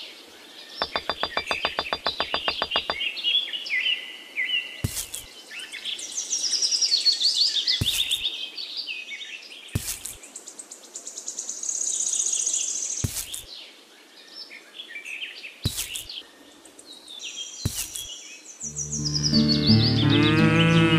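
Birds chirping and trilling throughout, with a short rapid rattle of clicks near the start and single sharp clicks every two or three seconds as small miniature pieces are set down. Music starts near the end.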